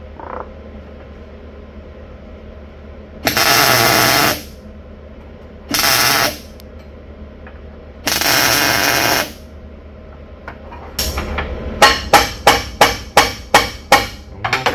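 Three short MIG tack welds on quarter-inch mild steel plate, each a steady hiss of about a second or less. Then a quick run of hammer blows on the steel plate, about three a second, tapping the freshly tacked plate back out square where the tacks pulled it in.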